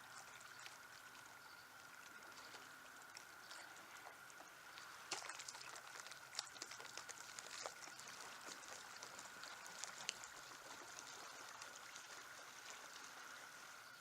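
Faint water trickling and lapping, with scattered small splashes and drips that come thickest in the middle, over a steady faint high hum.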